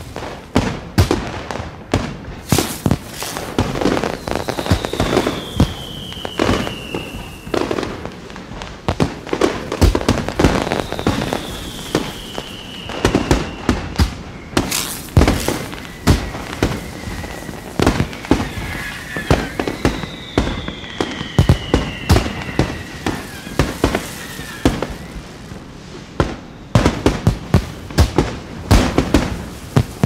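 Aerial fireworks display: a dense, continuous barrage of sharp bangs and crackling shell bursts. Three long falling whistles sound over it, one after another, in the first two-thirds.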